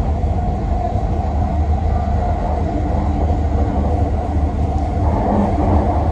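Vancouver SkyTrain car running along the guideway, heard from inside the front of the train: a steady rumble with a constant hum above it.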